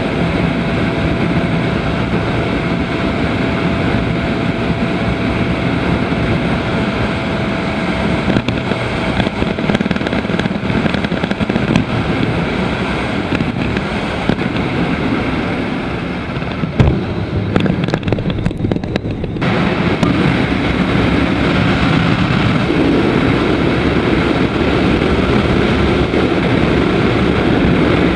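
Daelim Daystar 125cc motorcycle's V-twin engine running at road speed, with steady wind rush on the microphone. About 16 s in the wind hiss briefly drops away and there is a single knock. From about 20 s the engine and wind noise come back fuller and louder.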